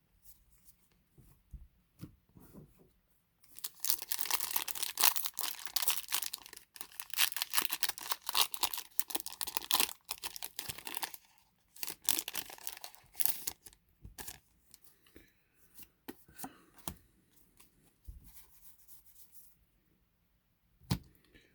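Foil booster pack wrapper being torn open and crinkled, in two loud stretches of crackling, followed by quieter rustling and light ticks.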